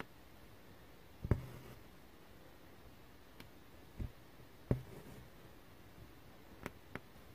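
Needle stitching through taut 14-count cross-stitch fabric: three soft thumps, about a second in, at four seconds and just before five, the first followed by a brief rasp of floss being drawn through. A few fainter ticks fall between them.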